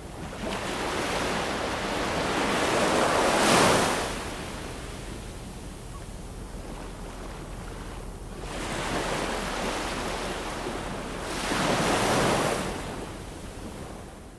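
Ocean surf: two waves wash in and draw back, one peaking about three and a half seconds in and the next about twelve seconds in, with the sound fading down near the end.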